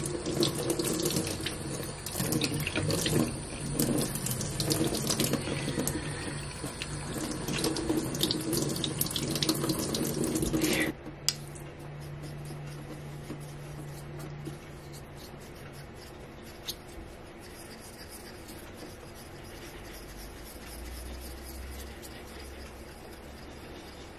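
Water running from a tap into a stainless-steel sink and splashing over a whetstone held under it, until the tap is shut off abruptly about 11 seconds in. After that, only faint scraping as a small stone is rubbed over the whetstone's face to raise a slurry.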